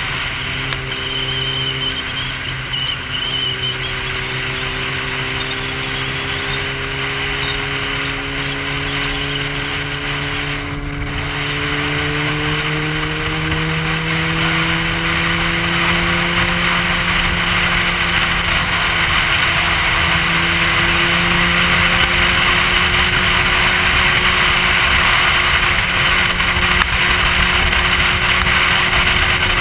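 Sport motorcycle's engine running under steady throttle, its pitch rising slowly as the bike gathers speed, with heavy wind rushing over the helmet-mounted camera.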